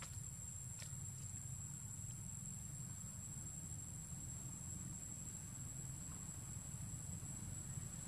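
Steady, high-pitched drone of insects, one held note, over a low rumble, with a couple of faint clicks in the first second.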